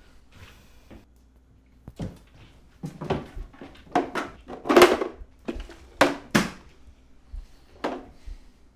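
A series of irregular knocks and thuds, about eight in all, the loudest about five seconds in, like objects being handled or set down.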